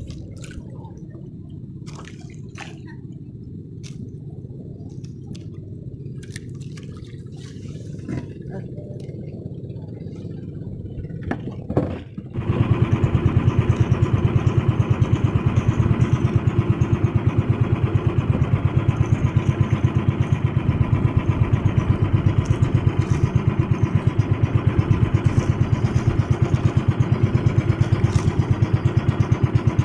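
Engine of a motorized outrigger boat (banca) running at speed: a low, steady hum for the first twelve seconds, then about twelve seconds in it turns suddenly much louder and closer, with a fast steady throb.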